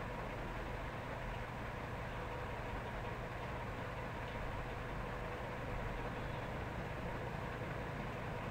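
Steady low hum with an even hiss, unchanging throughout.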